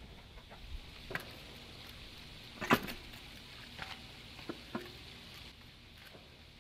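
Scattered clunks and clicks of a torque converter being handled and worked onto a Turbo 350 transmission's input shaft, the loudest clunk a little under three seconds in, over a faint steady hiss.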